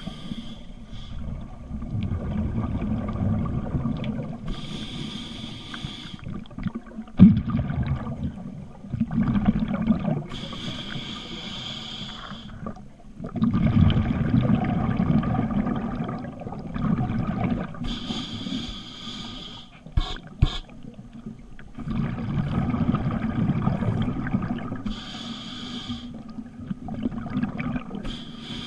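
Scuba diver breathing through a regulator underwater: a short hiss on each inhale, then a low rumbling rush of exhaled bubbles, about one breath every six to seven seconds. A single sharp knock about seven seconds in.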